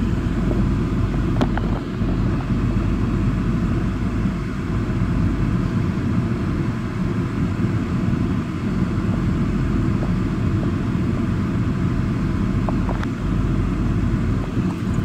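Wind buffeting the phone's microphone: a steady, fluttering low rumble, with a few faint clicks.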